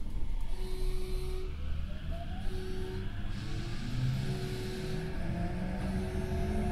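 Tokyo Metro 08 series electric train with Mitsubishi IGBT VVVF inverter drive accelerating: the traction motors' whine climbs steadily in pitch over the rumble of wheels on track, heard from inside the car.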